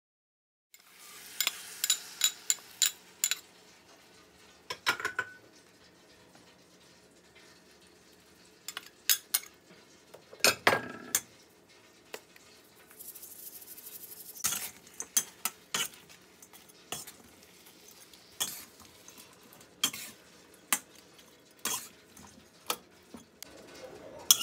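Metal wok spatula striking and scraping a steel wok while stir-frying chicken in sauce: a quick run of ringing clanks near the start, then scattered clanks and scrapes, with a brief sizzle around the middle.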